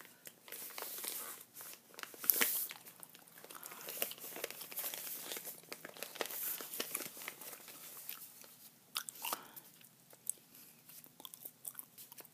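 Close-miked handling of a paper mailer envelope: irregular crinkling, rubbing and small crackles as fingers rub and shift it, loudest about two seconds in, mixed with gum chewing.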